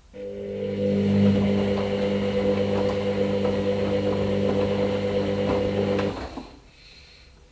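Hoover Nextra HNL662 washing machine running with a steady motor hum, over a rustling, sloshing haze. It starts abruptly and cuts off about six seconds in.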